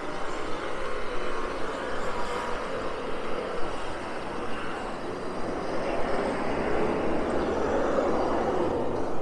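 City street traffic noise, swelling slowly as a vehicle passes close and loudest near the end.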